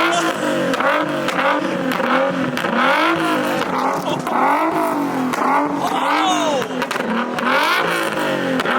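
A car engine revved up and down over and over, its pitch rising and falling about one and a half times a second.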